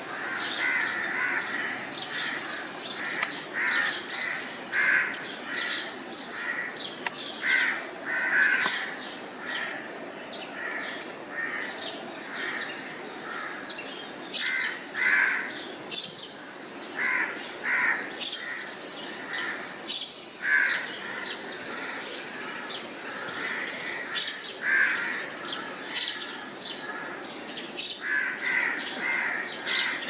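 Several birds calling: short harsh caws repeated over and over, mixed with quick high chirps from smaller birds.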